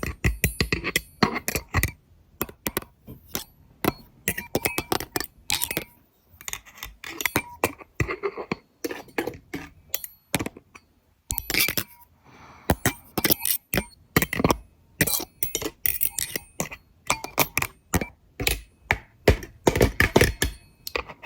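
Close-up ASMR clicking and tapping: dense, irregular sharp clicks and small scraping sounds made right at the microphone, standing in for a dental instrument picking at cavities in teeth.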